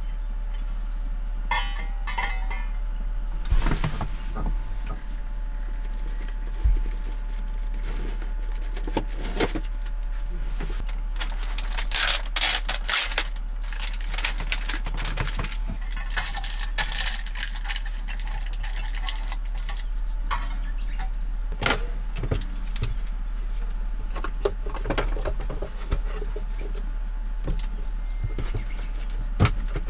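Cooking gear being handled by hand: a stainless steel pot knocked onto a camping gas stove, clinks, and the rustle of a food package, over a steady low hum.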